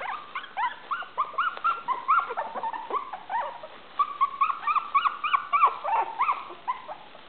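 Several 24-day-old Maltese puppies yipping and whining in quick, high little barks, a few each second, overlapping at different pitches. These are the thin first barks of puppies just learning to bark. They die away shortly before the end.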